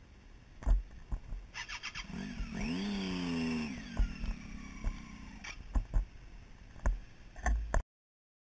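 An engine revs for about a second and a half, its pitch shifting up and down, among scattered knocks and bumps. The sound cuts off just before the end.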